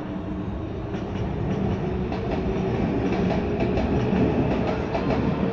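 Tokyu electric commuter train passing close by, its wheels clicking over the rail joints. It gets louder and is loudest about four seconds in.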